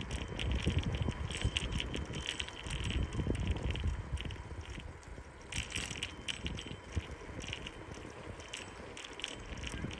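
Riding a bicycle: low wind rumble on the microphone, with irregular crackling and clicking from the bike and its tyres on the asphalt. The rumble eases off about halfway through.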